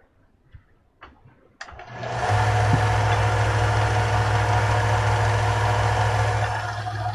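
A few light clicks, then an electric workshop machine is switched on about a second and a half in, spins up within a second and runs steadily with a strong low motor hum.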